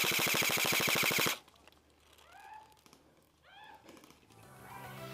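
Airsoft gun firing a rapid full-auto burst that cuts off about a second in. Two short squeaky chirps follow, then music fades in near the end.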